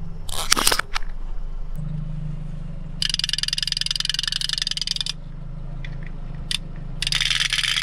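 A wind-up chattering-teeth toy clattering its plastic jaws fast in two spells, a couple of seconds each, over the low steady hum of an idling car. A few sharp plastic cracks come about half a second in.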